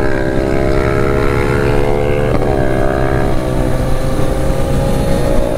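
Kawasaki Z900's inline-four engine running at a steady cruise, its pitch rising briefly about two and a half seconds in, with wind noise underneath.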